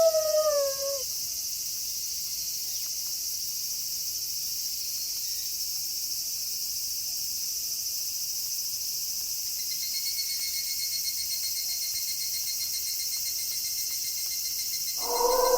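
Steady high chorus of crickets at night, with a fast pulsed trill joining about ten seconds in. A wolf howl falls in pitch and fades in the first second, and another howl begins just before the end.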